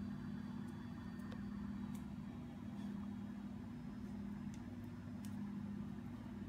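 Steady low hum, with a few faint clicks and taps from a mastiff puppy licking and nudging an ice cube on a tile floor.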